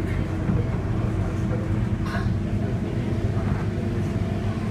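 Scania K230UB city bus's nine-litre five-cylinder diesel engine running steadily under way, heard inside the bus cabin, with a brief hiss about two seconds in.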